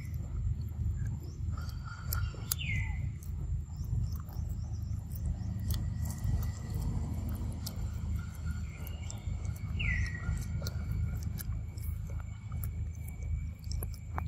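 A macaque chewing and biting a ripe mango close to the microphone, heard as wet smacking clicks over a low steady rumble. A bird's whistled call falls in pitch and then holds twice, about three seconds in and again about ten seconds in.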